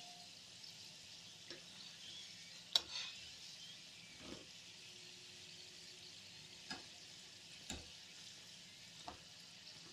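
Spring rolls deep-frying in hot ghee in a small wok: a steady, quiet sizzle, with about six short clicks of a perforated metal skimmer against the pan as the rolls are turned, the sharpest about three seconds in.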